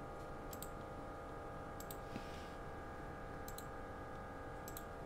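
Computer mouse clicking as CAD commands are picked: four quick double clicks, a second or so apart, over a faint steady electrical hum.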